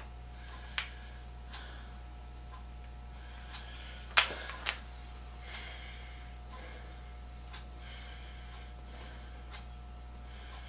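Faint clicks and scrapes of a brace and auger bit being handled while the bit's lead screw is picked clean of packed end-grain chips, with one sharper click about four seconds in. Soft breathing and a steady low hum run underneath.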